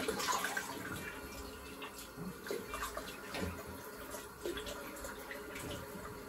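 Water splashed by hand at a sink, a quick rinse of the face after shaving, in scattered small splashes and drips.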